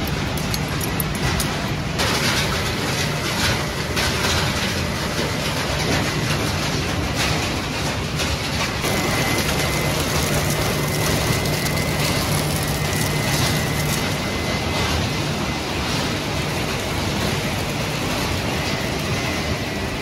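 Refrigerator recycling plant's shredding and separation machinery running: a loud, steady industrial din with a constant low hum, and a thin high whine through much of the second half.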